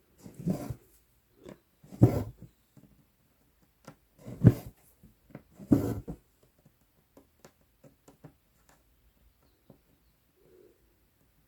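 Embroidery floss being pulled through 11-count Aida cloth in four short noisy pulls a second or two apart, with small ticks of the size 24 needle piercing and tapping the fabric between them.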